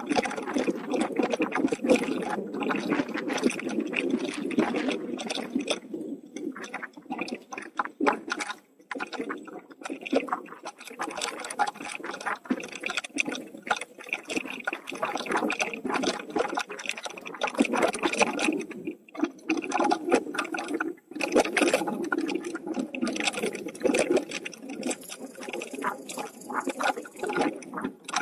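Bicycle tyres rolling over a dirt and gravel trail, a continuous crunching and rattling with a few brief lulls.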